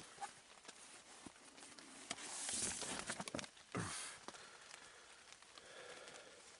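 Quiet, with faint rustling that swells twice about halfway through, and a few light clicks.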